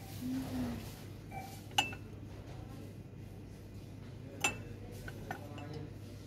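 Metal cookware or dishes clinking: two sharp clinks with a brief ring, about two and a half seconds apart, and a few faint ticks, over a steady low background hum.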